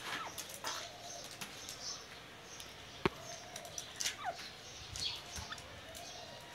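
Caged francolin giving soft short calls that slide downward, about twice, with faint high chirps between them. A sharp click comes about three seconds in.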